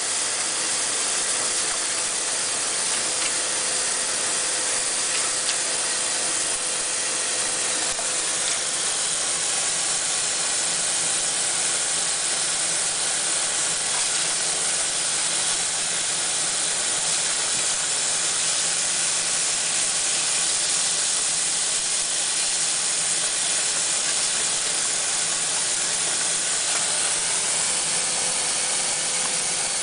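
Faucet running steadily into a stainless steel sink partly filled with water, the stream falling onto a baby's hands and into the bathwater.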